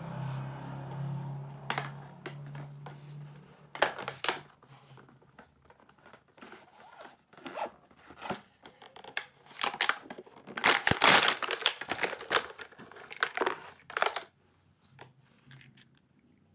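Toy packaging being torn open and crinkled by hand: a run of irregular rips and rustles, loudest about eleven seconds in. A low steady hum fades out over the first few seconds.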